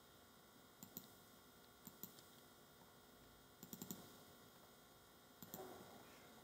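Faint computer mouse-button clicks: a pair about a second in, another pair about two seconds in, a quick run of four just before the middle, and a last pair near the end.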